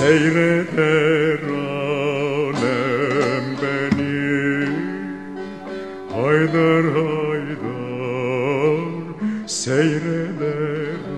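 A man singing a Turkish folk song (türkü) in long, ornamented phrases with wavering vibrato, over plucked string accompaniment of a bağlama.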